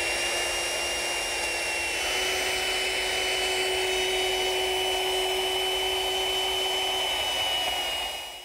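Electric router with a 1/2-inch cove bit running at full speed, cutting a cove finger pull along the edge of a pine drawer front: a steady high whine with cutting noise. It dies away near the end as the motor winds down.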